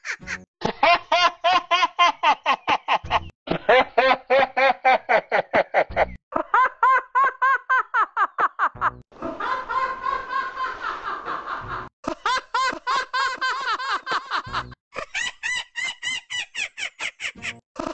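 A cartoon character's laugh, a fast run of 'ha-ha' pulses, played six times back to back, about three seconds each, every time through a different voice effect that changes its pitch and tone. One version, around the middle, is smeared and blurred.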